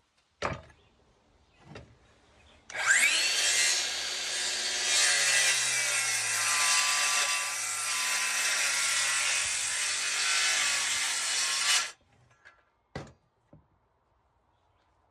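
Power saw spinning up with a rising whine and cutting through a wooden stair stringer for about nine seconds, then stopping abruptly. There are a sharp knock or two before the cut and after it.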